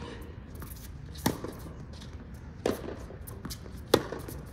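Tennis ball struck by racquets during a baseline rally: three sharp hits a little over a second apart, the last the loudest, with fainter ticks of the ball bouncing between them.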